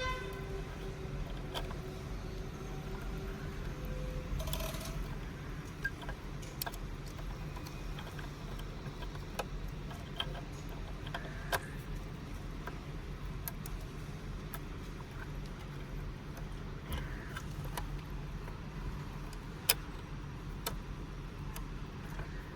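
Wiring-harness plugs and loose cables being handled and pushed together behind a car's head unit: scattered clicks, ticks and light plastic rattling over a steady low hum, with a faint whine in the first few seconds.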